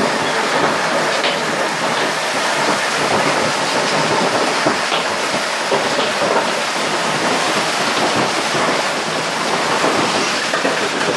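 Storm: heavy wind-driven rain beating on the windows, a steady dense hiss with the odd faint knock.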